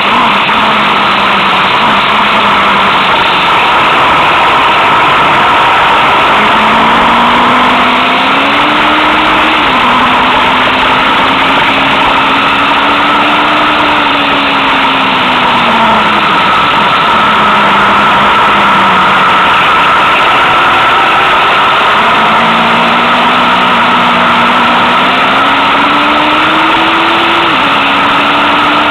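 Motorcycle engine running while riding, its pitch climbing with speed and dropping suddenly at a gear change twice, easing off once in between, under a loud steady rush of wind and road noise.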